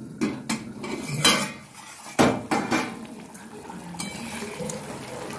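Stainless-steel plate lid clanking and scraping against a steel wok as it is handled and lifted off, with a few sharp metallic knocks in the first three seconds; the loudest comes a little over two seconds in.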